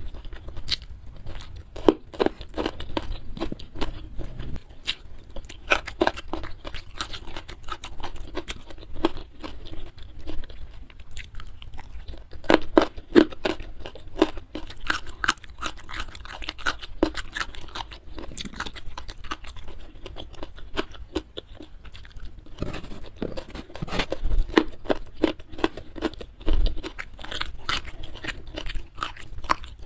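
Close-miked chewing of food: a dense run of quick mouth clicks and bites, easing off briefly about two-thirds through.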